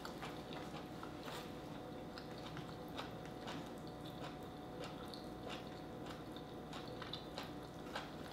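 Close-up mouth sounds of people eating boiled seafood: chewing with small wet smacks and clicks coming at an uneven pace.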